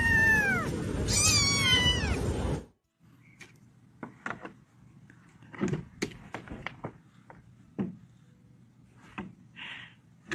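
A domestic cat meowing loudly: one meow trailing off at the start and another long meow about a second in, each rising then falling in pitch over a noisy background, cut off abruptly before three seconds in. After that, faint scattered taps and knocks, with a brief sharp sound at the very end.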